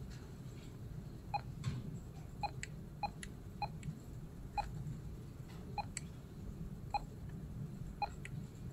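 Video door phone monitor giving short single-pitch key-press beeps, about eight of them at irregular intervals of roughly a second, as its menu buttons are pressed. Faint clicks of the buttons or fingertip are heard between them.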